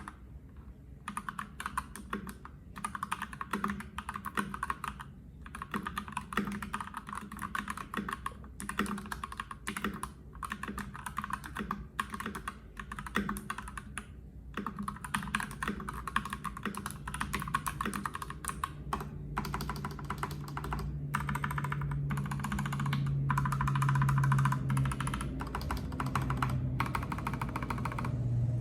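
Typing on a HelloGanss HS87T mechanical keyboard with linear Gateron Yellow Pro switches and PBT double-shot keycaps: fast runs of keystroke clacks broken by short pauses. A low steady hum comes in about two-thirds of the way through.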